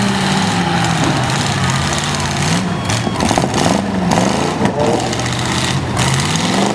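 Demolition derby cars' engines running hard and revving up and down as the cars shove against each other, with a few short knocks in the middle.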